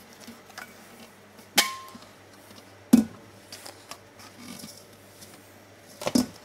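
Stainless steel mixer bowl knocking against the tub three times as brioche dough is scraped out of it with a spatula; the first knock rings briefly, the middle one is the loudest.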